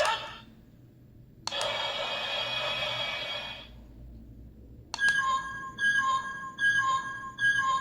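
Sound effects from the small speaker of a DX Ultraman Omega transformation toy: a button click, a hissing beam effect for about two seconds, then from about five seconds in a colour timer warning beeping, a two-tone beep repeating a little more than once a second.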